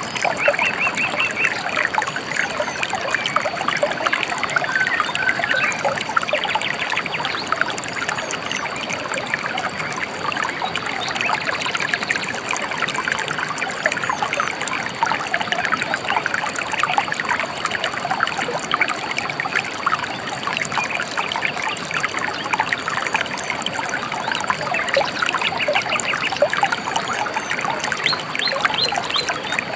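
Steady trickling and splashing of a gently flowing stream, with bird chirps over it now and then.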